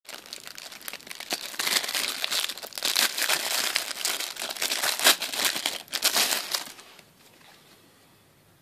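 Clear plastic packaging bag crinkling and rustling in the hands as a phone case is pulled out of it, a dense crackle that stops near the end.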